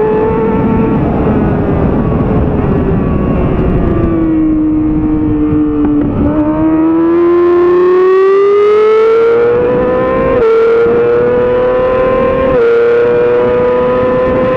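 2007 Yamaha R6's inline-four engine heard from onboard with wind rush. The engine pitch falls for about six seconds as the bike slows through a corner, then rises steadily under hard acceleration. Two brief breaks about 10 and 12.5 seconds in are upshifts.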